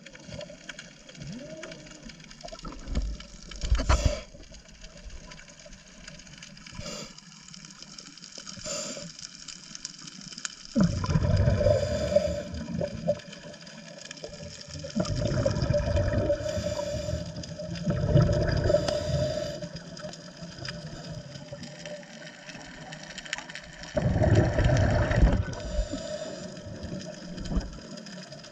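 Underwater ambience of a diver's breathing: loud rumbling gurgles of exhaled bubbles come in bursts of about two seconds, four times in the second half, over a steady underwater hiss. A couple of sharp knocks come a few seconds in.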